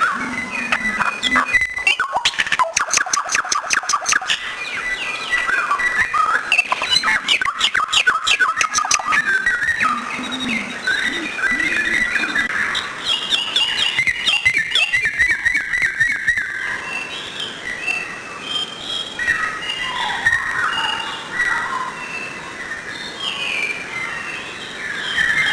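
Songbirds singing: a busy mix of chirps and whistled notes, with rapid rattling trills of about ten notes a second early on and again a few seconds later.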